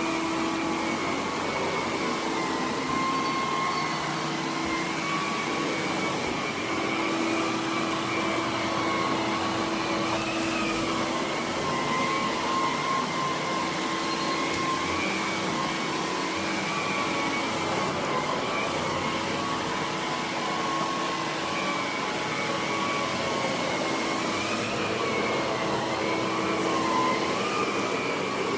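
Electrolux Super J canister vacuum cleaner running steadily, its motor whine wavering slightly in pitch. The owner calls the old motor pretty rough and says he knows the cause but can't fix it.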